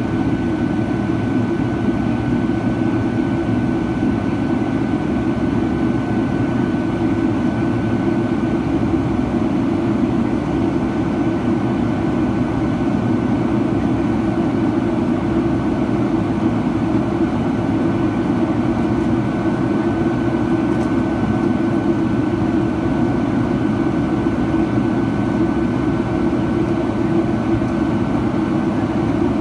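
Steady cabin noise of a Boeing 757-300 in its climb: an even roar from the jet engines and the air rushing past the fuselage, with a thin steady whine running through it.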